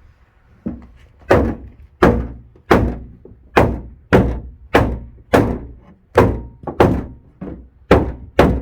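Hammer striking a scrap wood block held against the inside of a 2008 Chevy Impala's trunk lid to push a dent back out: about a dozen sharp, evenly spaced blows, roughly one and a half a second, each with a short ring.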